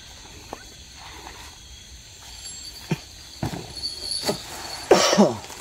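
A few faint knocks and rustles, then a person coughing near the end.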